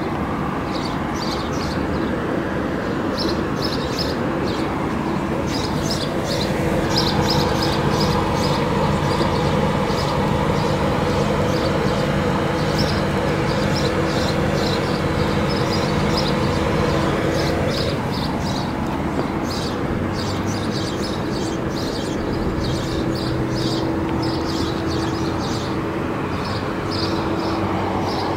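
A car running steadily with a held hum that shifts once, about two-thirds of the way through. Short high chirps come and go over it.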